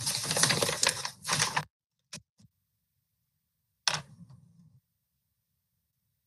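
Computer keyboard typing: a quick flurry of key clicks for about a second and a half, a couple of lone clicks just after two seconds and one sharper click near four seconds, each cutting off abruptly into silence.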